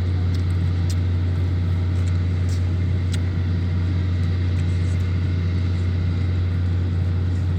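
A steady, loud low machinery hum drones on without change, with a few faint clicks over it.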